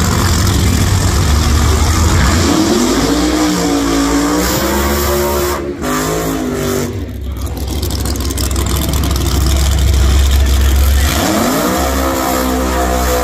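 Drag-racing doorslammer V8 engines running at high revs: a steady deep rumble, with the engine note climbing sharply three times as the throttle is opened during a burnout.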